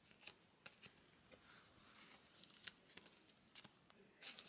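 Faint clicks and slides of chrome trading cards being flipped through by hand, with a brief crinkle of clear plastic near the end.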